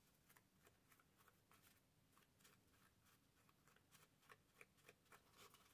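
Near silence with faint, repeated soft rubbing strokes of an ink pad being dabbed and swiped along the edges of paper. The strokes come two or three a second and grow slightly louder near the end.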